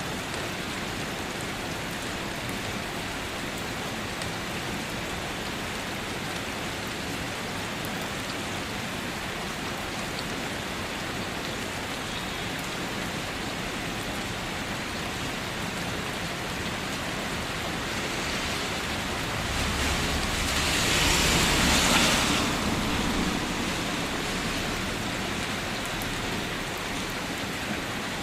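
Steady rain falling. It swells louder for a few seconds about twenty seconds in, with a low rumble underneath, then settles back.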